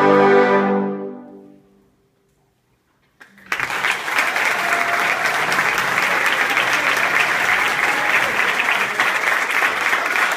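A trombone choir's closing chord rings out and dies away over about a second and a half. After a second of silence, applause breaks out and goes on steadily.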